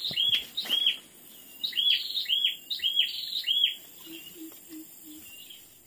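A bird calling a rapid series of short high notes, about three a second, in two runs with a pause between them. Near the end come four faint low hoots, evenly spaced.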